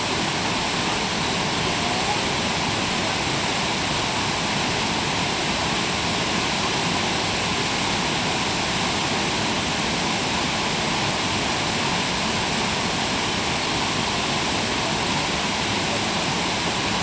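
Senga Falls waterfall: falling water rushing steadily, an even, unchanging noise.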